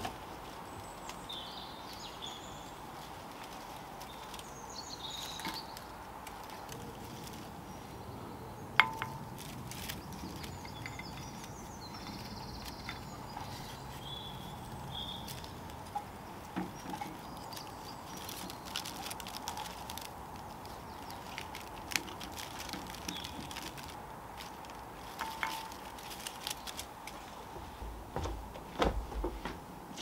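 Dry palm leaflets rustling and clicking as a woven palm-leaf shade is fitted over an outdoor string-light bulb, with one sharp click about nine seconds in. Faint bird chirps now and then, and a few low thuds near the end.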